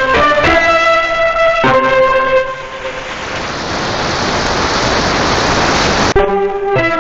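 Instrumental music with sustained notes gives way about two and a half seconds in to a rising hiss of radio static, which cuts off suddenly near the end as the music comes back.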